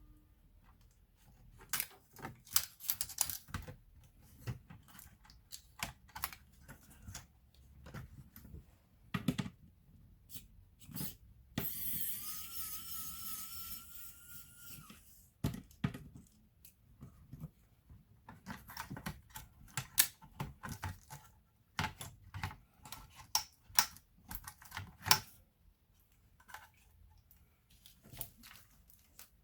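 Small plastic and metal clicks, taps and knocks of laptop parts and tools being handled during disassembly. About twelve seconds in, a steady hiss with a faint slightly rising whine lasts around three seconds.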